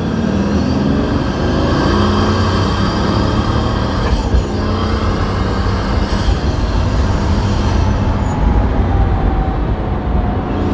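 Pagani Huayra's twin-turbo V12 running while driving, heard from inside the cabin over steady road noise. The engine pitch rises in the first second, then runs fairly even.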